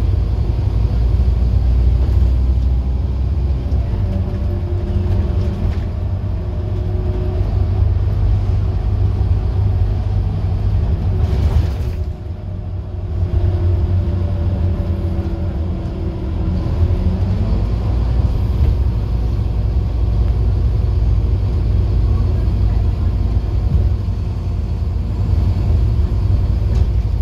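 Scania N230UD OmniCity double-decker bus under way, heard from inside on the upper deck: the diesel engine and driveline run with a steady low rumble, their pitch slowly rising and falling as the bus pulls through its long gears. About eleven seconds in there is a brief hiss, and the engine sound drops for about a second before picking up again.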